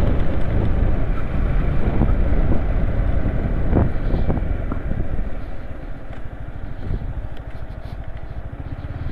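Yamaha MT15 V2 motorcycle being ridden, its single-cylinder engine running steadily under road and wind rush, easing off a little in the second half.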